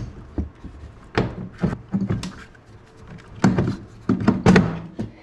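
A string of short knocks and clunks as a rubber drive belt is forced over a snowmobile's secondary clutch sheaves, loudest near the end.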